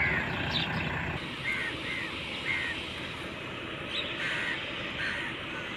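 Birds calling: a series of short, harsh calls repeated every half second or so, over a low engine rumble that drops away about a second in.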